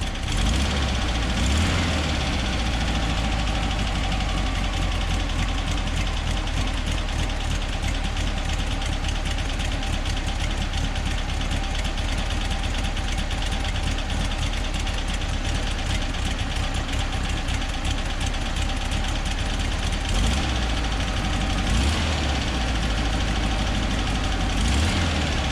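1963 VW bus's 1835 cc air-cooled flat-four idling steadily after being brought back from a no-start, with a few brief louder moments near the start and in the last few seconds.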